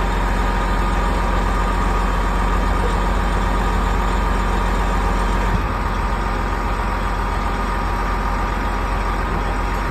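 Heavy wrecker's diesel engine running steadily with a deep hum and a faint steady whine above it, working the boom as the overturned cement mixer truck is lifted. The low engine note drops a little about halfway through.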